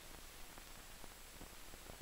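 Faint steady hiss and low hum of an old film soundtrack, with no other sound.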